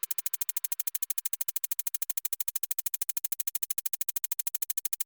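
Rapid, perfectly even electronic pulsing, about fourteen ticks a second at a steady level, heard as a synthesized buzzing rattle.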